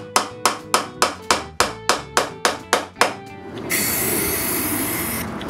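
A hammer driving cut square nails into wood, sharp strikes about three a second, over background music. About three and a half seconds in the hammering stops and a can of spray paint starts hissing steadily.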